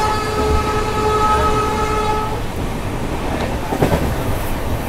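A train horn sounds a steady chord and stops about two seconds in, over the continuous rumble of a passenger coach running along the track, with a sharp click a little later.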